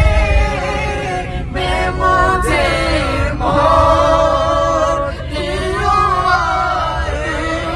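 Several voices singing an Urdu naat (Islamic devotional song) together, with long held, wavering notes.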